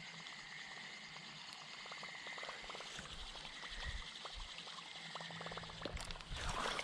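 Faint outdoor river ambience: a steady high-pitched drone with light water sounds and scattered soft ticks, getting louder near the end.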